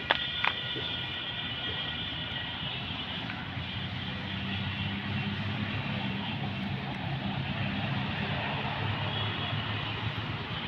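A steady engine drone whose low hum grows stronger about four seconds in, with two sharp clicks near the start.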